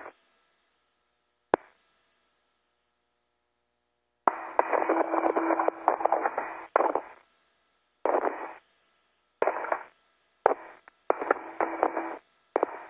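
Air-to-ground radio transmissions heard through a narrow radio band, cutting in and out in short keyed bursts with dead silence between them. There is a single sharp click about a second and a half in, and the longest transmission comes about four seconds in.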